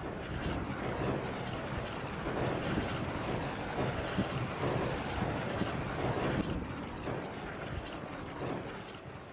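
Artillery fire as a continuous rushing rumble with no separate reports, swelling over the first seconds and fading near the end.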